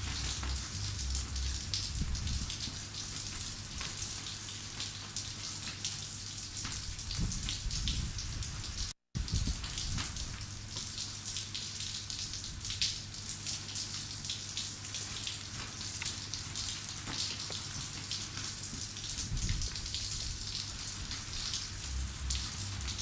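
Light rain pattering steadily over a low hum, broken by a brief dropout about nine seconds in.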